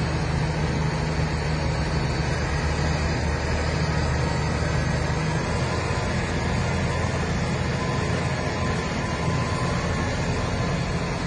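Tractor engine running steadily at work, its low hum changing slightly about halfway through.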